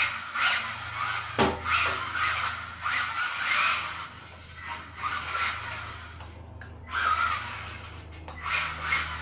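Kyosho Mini-Z AWD radio-control car's small electric motor whining up and down in repeated throttle bursts, with its tyres skidding across smooth floor tiles as it drifts.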